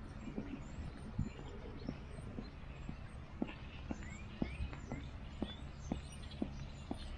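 Footsteps on a concrete sidewalk, a steady walking pace of about two steps a second, with a few bird chirps midway.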